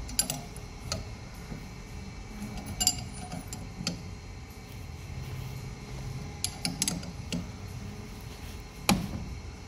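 Scattered light metallic clicks and clinks of a two-jaw gear puller being tightened with a wrench on a differential carrier, pulling off its tapered roller bearing, with a sharper knock near the end.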